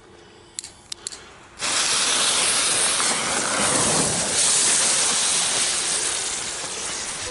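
Several Xplode Feuerringe fire-ring ground spinners (F1 youth fireworks) igniting and burning together. A few small clicks come first, then about a second and a half in a sudden loud, steady hiss of spraying sparks starts, easing slightly near the end.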